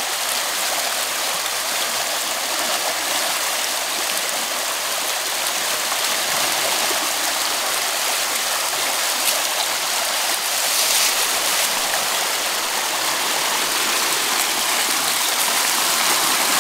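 Fast, muddy river current rushing and churning around rocks at the bank, a steady rushing noise.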